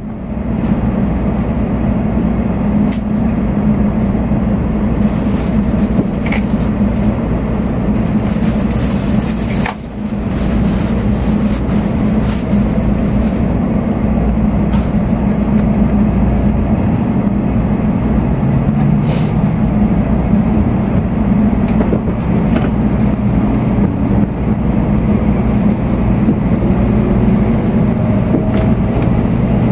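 Inside an N700 series Shinkansen car as it pulls away from the platform: a steady low rumble of the train running, with the traction motors' whine rising in pitch near the end as it gathers speed.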